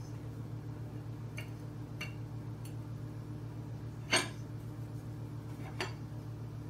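A cat's paw knocking a lid against a ceramic dog bowl, making a few light clinks and one sharp, louder clink about four seconds in, then another clink near six seconds. A steady low hum runs underneath.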